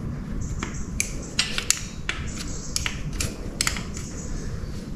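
Light, sharp clicks and taps of metal parts being handled as gloved hands settle a freshly ground crankshaft into new main bearing shells in a John Deere engine block. About a dozen clicks come at irregular intervals over a steady low background rumble.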